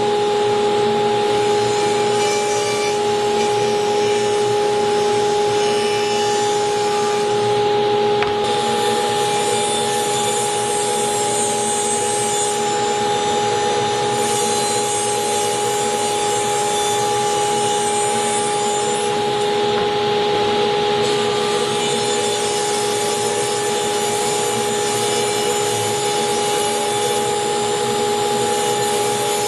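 Table saw running with a steady whine as it rips wooden boards lengthwise, the blade cutting through the wood.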